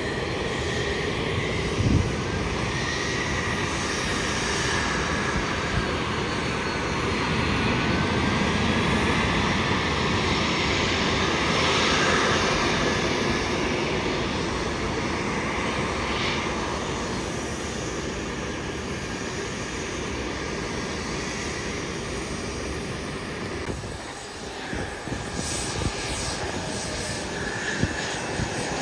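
Jet engines of a small twin-engine business jet taxiing: a steady rush with a high whine that glides in pitch. Near the end the sound changes to the engines of a CRJ700 regional jet rolling along the runway.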